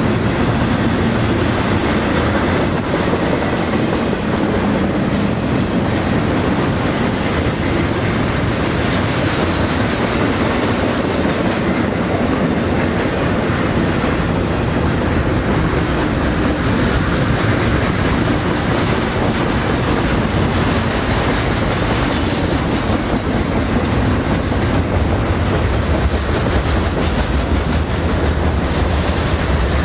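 A freight train of double-stack container cars and autoracks rolling past steadily, its wheels clacking over the rail joints.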